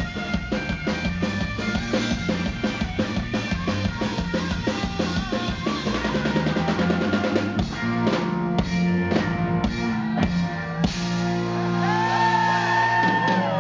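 Live three-piece rock band playing: electric guitar, electric bass and drum kit. Fast, busy drumming thins out about eight seconds in, and near the end held electric guitar notes bend up and down in pitch.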